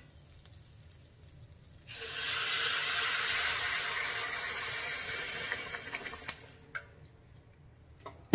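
Water poured into a hot pan of fried vegetables and roasted oats: a loud rushing hiss that starts suddenly about two seconds in and fades away over about four seconds.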